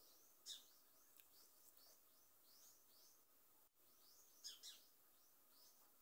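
Faint small birds chirping over near silence: short, repeated high chirps a few times a second, with two louder calls about half a second in and near four and a half seconds.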